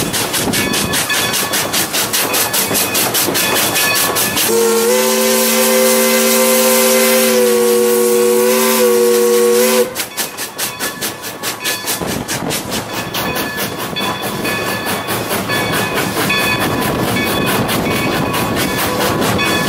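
Chime steam whistle of steam locomotive No. 40, a 1910 Baldwin 4-6-0, blown once as a chord of several notes held for about five seconds and cut off sharply. Around it, the running locomotive and its train keep up a steady, rapid beat with hiss.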